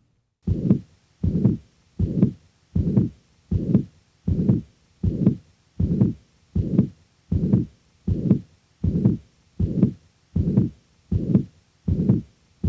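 Heart sounds of a patient with mitral regurgitation, heard through a stethoscope: a regular beat a little faster than once a second, each beat carrying a pansystolic murmur that fills systole from the first to the second heart sound. The murmur is of rather high frequency, typical of mitral regurgitation.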